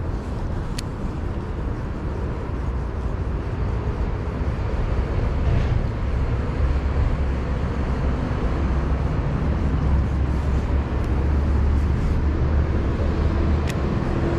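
Steady low rumbling outdoor noise that grows louder about five seconds in, with two faint sharp clicks, one near the start and one near the end.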